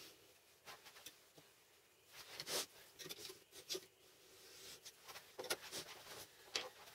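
Pencil scratching short marking strokes on an MDF board, with light clicks and knocks of a steel square being shifted and set down. The strokes come singly at irregular intervals.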